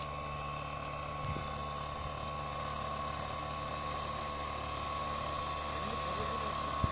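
Two-stroke engine of a backpack power duster running at a steady speed, its fan blowing sulphur dust, with a constant high whine over the engine note. A brief knock comes near the end.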